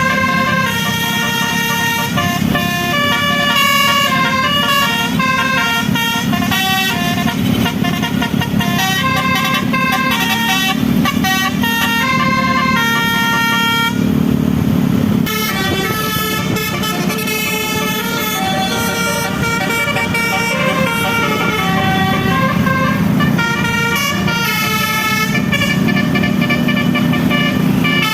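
Telolet musical horn on the QQ Trans 'Winspector' bus, playing a melody of quickly changing held notes that breaks off for about a second halfway through, over the bus's engine running.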